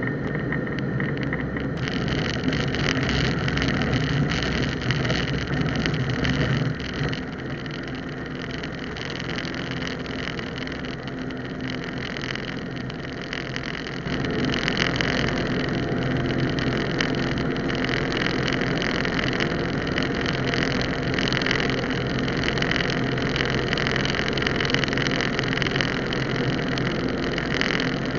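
Cessna 150's Continental O-200 four-cylinder engine and propeller running steadily. The engine note drops back about seven seconds in and picks up again suddenly about fourteen seconds in, as the power is reduced and then increased.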